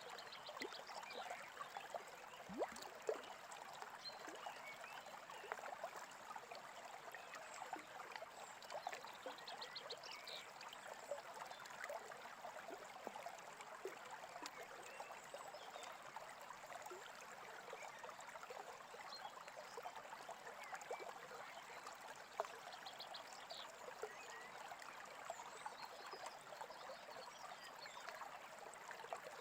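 A small brook trickling and babbling steadily, with a few louder water plops, the loudest about three seconds in. Birds chirp briefly in quick high runs a few times.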